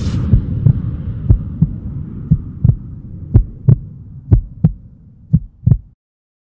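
Trailer-style soundtrack: a low drone fading away under a heartbeat-like double thump that repeats about once a second, cutting off suddenly near the end.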